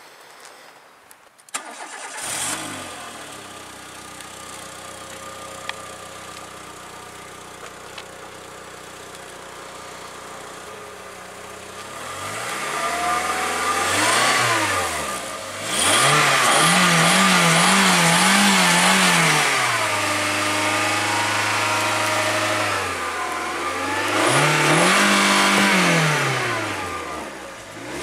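A Volkswagen Polo's engine starts after a few clicks and idles steadily. It is then revved: a long rise and fall, a run of quick pedal-pumped blips, a held higher speed, and another long rev near the end.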